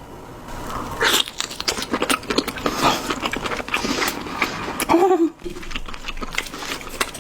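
Close-miked chewing and biting of squid: irregular wet clicks and smacks from a mouthful.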